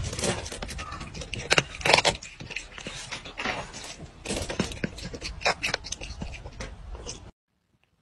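Cat crunching dry kibble: a rapid, irregular run of crunches and clicks that stops abruptly about seven seconds in.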